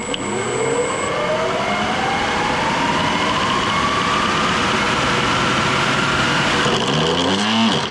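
3D-printed 170 mm geared electric ducted fan, a brushless motor driving a printed planetary gearbox, spooling up under throttle with a whine that climbs steadily in pitch. Near the end the pitch drops quickly as it winds down.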